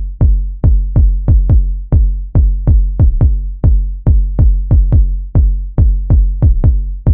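Background electronic music with a heavy, punchy bass beat, about three hits a second in a syncopated pattern.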